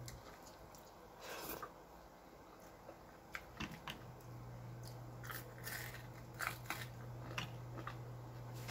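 Faint eating sounds: short crunches and clicks of small fish being picked off a plate by hand and chewed. A low steady hum drops out just after the start and comes back about four seconds in.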